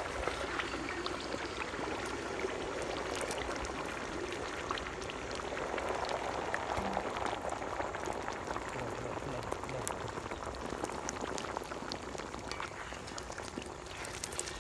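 Beaten eggs frying in hot oil in a metal pan: a steady sizzle with constant small crackles and spits.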